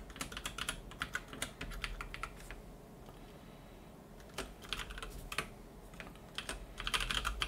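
Computer keyboard keystrokes in quick bursts of clicks, with a pause of about two seconds in the middle and another burst near the end.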